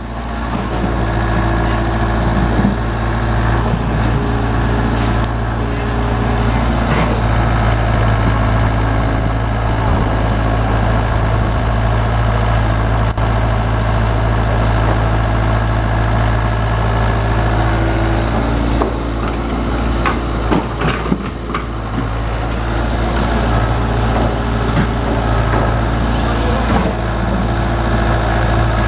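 Kobelco mini excavator's diesel engine idling steadily, heard up close through its open engine cover, with a few short knocks about two-thirds of the way through.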